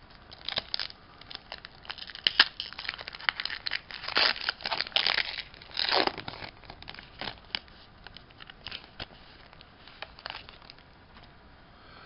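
Foil wrapper of a Pokémon Evolutions booster pack crinkling and tearing as it is ripped open, dense and crackly for the first six seconds or so. After that come sparser rustles and clicks as the cards are slid out.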